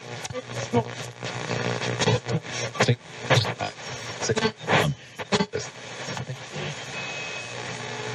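Radio being tuned across the dial: static hiss with brief snatches of stations' voices and clicks as the tuning sweeps past them, settling into steady hiss with a faint whistle tone in the last couple of seconds.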